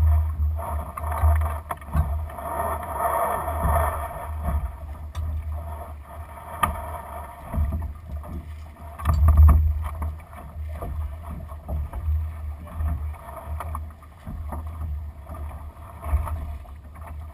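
A Lightning sailing dinghy under way in light wind: water washes along the hull under a gusty low wind rumble on the microphone that swells about nine seconds in, with a few light clicks scattered through.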